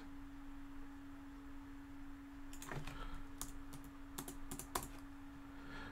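Computer keyboard typing: a quiet couple of seconds, then a short scattered run of keystrokes in the second half, over a faint steady hum.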